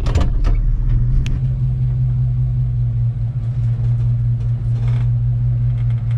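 Engine of a 1987 Chevrolet squarebody pickup running at a steady idle: an even low rumble with no revving.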